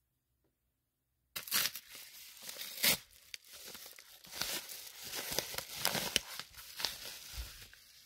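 A yellow padded bubble mailer being ripped open by hand: paper tearing and crinkling that starts about a second in and runs on, with several sharp louder rips.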